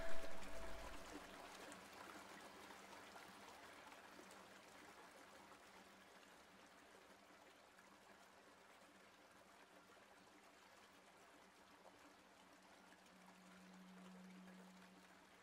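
Faint steady flowing water, like a stream, as a ringing musical note fades out at the start. A low hum swells softly near the end.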